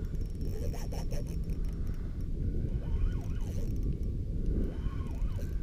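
Wind buffeting an action-camera microphone on a kayak, a steady low rumble, with faint rising-and-falling whistles twice, about halfway through and near the end.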